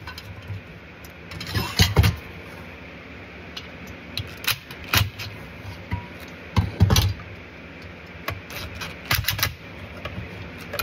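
Cordless driver running in several short bursts to run screws into a diesel heater's blower and combustion chamber assembly, with metal parts clinking in between.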